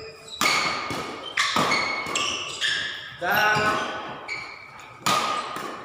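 Badminton doubles rally: rackets hitting the shuttlecock again and again, a sharp hit every half second to a second that rings on in a large hall, with short squeaks of court shoes on the floor.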